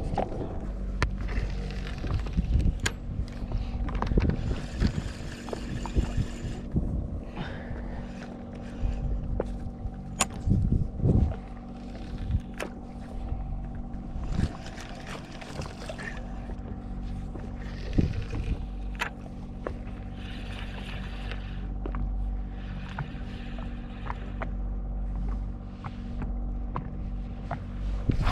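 A boat's engine idling with a steady hum, under wind and water hiss that swells and fades, with scattered sharp clicks and knocks.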